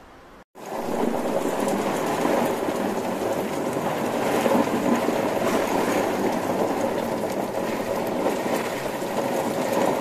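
Heavy typhoon rain pouring down: a loud, steady rush that starts abruptly about half a second in.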